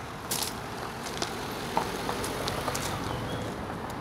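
Footsteps crunching on loose gravel at an irregular walking pace, with a low steady hum coming in about halfway.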